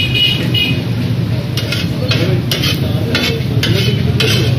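Metal spatulas scraping and clacking on a large flat griddle, in a steady rhythm of about two to three strokes a second from under two seconds in, as food sizzles on the hot metal. A steady low rumble runs underneath.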